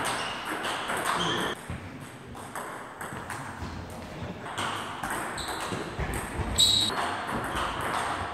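Table tennis rally: the plastic ball clicking off the rackets and the table in quick alternation, each hit short and sharp with a brief high ring, echoing in a sports hall.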